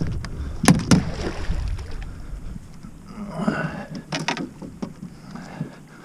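Sharp knocks and clunks of gear being handled in a fishing boat, a few in quick succession about a second in and again a little past the middle, over a low rumble that drops away near the end.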